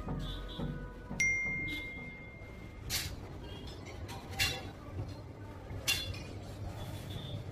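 A clear, ringing ping that starts suddenly about a second in and holds steady for just over a second, followed by three sharp metallic clinks about a second and a half apart.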